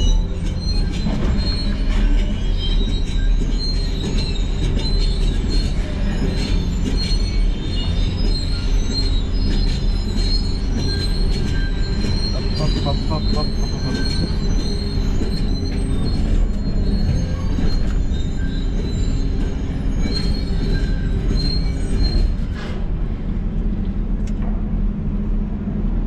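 Heavy excavator running under load with a continuous low engine drone, a sustained high-pitched metallic squeal and frequent squeaks and clanks of steel. The squeal stops about 22 seconds in while the engine keeps running.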